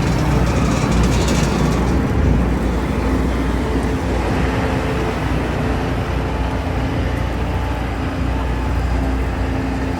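Preet combine harvester running, a steady loud drone from its engine and machinery, with a hissing rush in about the first two seconds.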